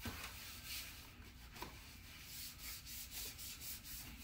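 A disinfectant wipe rubbing across the plastic casing of a peritoneal dialysis cycler: a series of faint, brushing wiping strokes.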